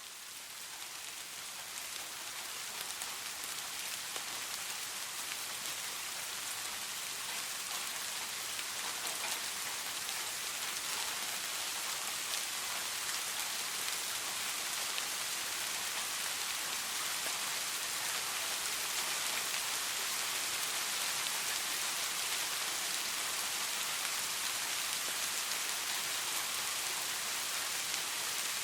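Steady soft rain falling, a dense hiss of many fine drops, fading in over the first few seconds and then holding even.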